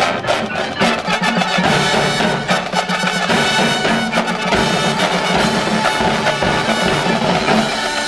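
A marching band playing: massed brass with drums and percussion, loud and sustained.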